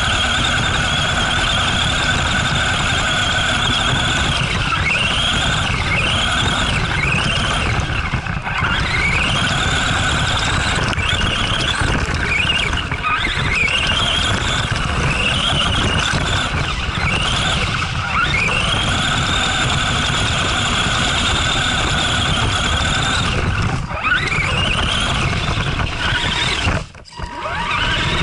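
Arrma Granite 4X4 RC truck's electric motor and drivetrain whining, rising in pitch again and again as the throttle is punched while it slides on snow, heard from a camera mounted on the truck, over a steady low rumble. The whine drops out briefly about a second before the end.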